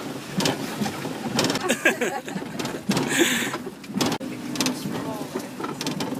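Cabin noise inside an off-road vehicle driving over a rough grassy track: a steady engine hum under repeated knocks and rattles from the bodywork, with brief voices.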